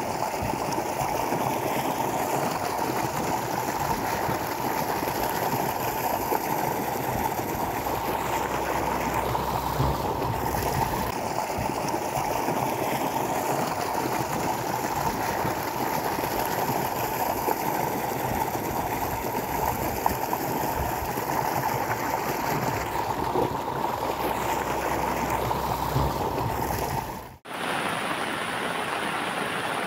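Floodwater rushing in a steady, noisy stream, with an abrupt change in the sound near the end.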